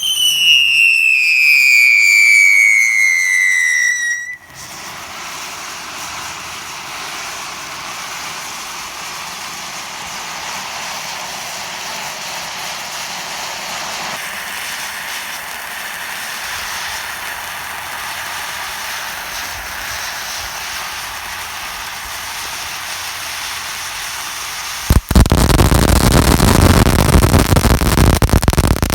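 Fireworks: a loud whistle gliding down in pitch for about four seconds, then a long steady rushing noise like wind on the microphone, then near the end a sudden loud burst of dense crackling noise that keeps going.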